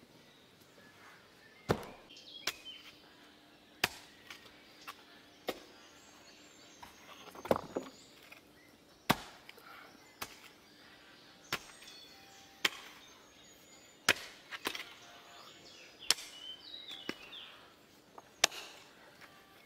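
A series of sharp, irregular knocks, about one every one to two seconds: a long-handled digging tool striking the stony soil and the wooden boards of a raised-bed frame.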